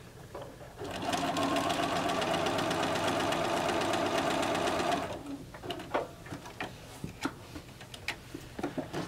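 Bernina sewing machine stitching a seam through patchwork pieces at a steady speed for about four seconds, then stopping abruptly. A few light clicks and rustles follow as the fabric is handled at the needle.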